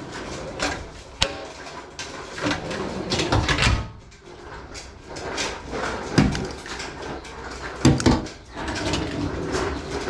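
Custom aluminium 4WD drawers being slid open and shut on their runners, with latch clicks and metal clatter. Several heavy knocks stand out, the loudest about six and eight seconds in.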